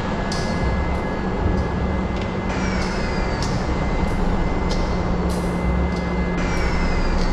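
Loud, dense noise drone with a steady low hum and rumble beneath it. Short falling hisses come about once a second, and the whole pattern repeats about every four seconds like a loop.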